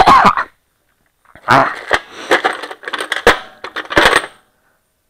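Steel wrenches and sockets clanking and clinking together as a hand rummages through a metal toolbox, in a run of short, sharp rattles.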